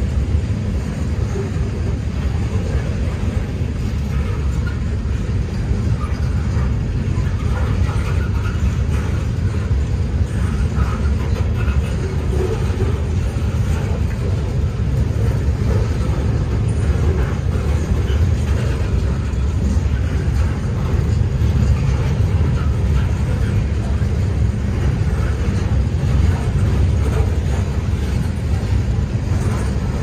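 Freight train boxcars rolling past: a steady, heavy rumble of steel wheels on the rails.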